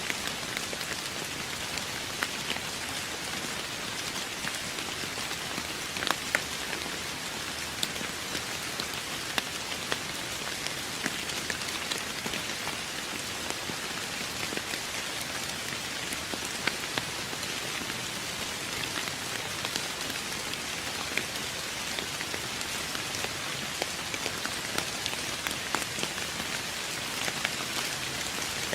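Steady rain falling on a surface: a constant hiss with scattered sharper taps of individual drops landing close by.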